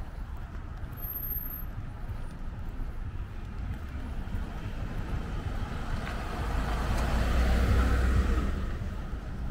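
A Ford F-150 pickup truck driving slowly past close by, its engine and tyre noise swelling to a peak near the end and then fading, over a steady low rumble.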